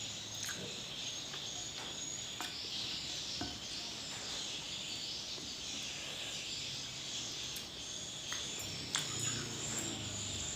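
A steady, high-pitched insect chorus, with scattered small clicks of someone eating.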